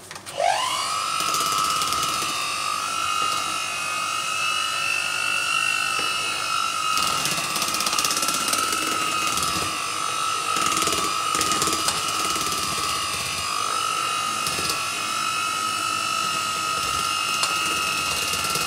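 Electric mixer starting up, its motor whine rising quickly in pitch and then running at a steady speed while beating icing, with a little clatter from the beaters now and then in the middle.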